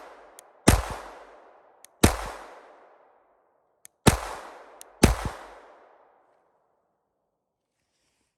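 Glock 44 .22 LR pistol firing four single shots at an uneven pace, each with a ringing tail of about a second. The shooting stops a little past halfway, and a faint click comes near the end.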